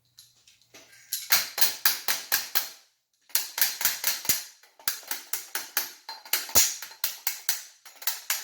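Rapid mallet blows on the bicycle's triple-tree fork and headset, about four or five strikes a second in two runs with a short break about three seconds in, driving a stubborn part into place.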